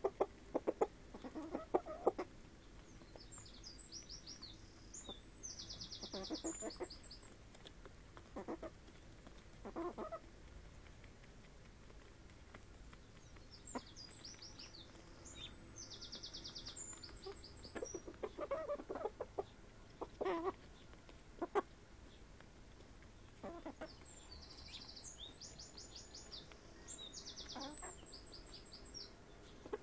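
Chickens clucking in short, irregular bursts every few seconds as they forage. In the background a songbird sings the same high trilling phrase three times, about ten seconds apart.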